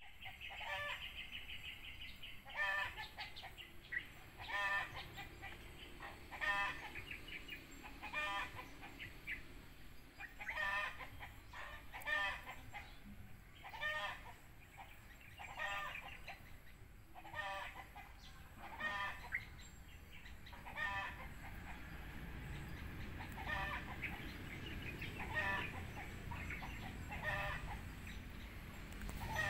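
A bird calling over and over, one short call about every two seconds. A low background rumble grows louder near the end.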